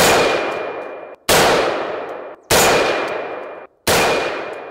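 AR-15 rifle fired rapidly, four shots a little over a second apart, each shot echoing away over about a second.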